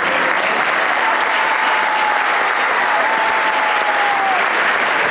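Concert audience applauding steadily. A single long tone is held above the clapping for about three seconds and drops in pitch at its end.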